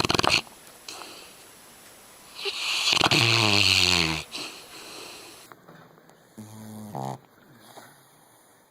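Dog snoring: a loud rattling snore at the start, a longer loud snore with a hiss and a low buzzing tone about two and a half seconds in, and a shorter, quieter snore near the end.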